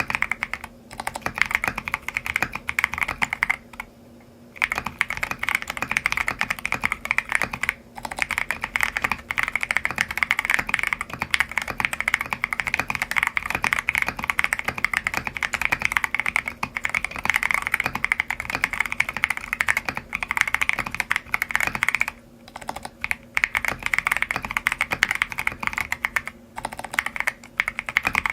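Typing on a mechanical keyboard fitted with Lelelab Y2K tactile switches: a dense, fast run of keystrokes, broken by short pauses about four, eight and twenty-two seconds in.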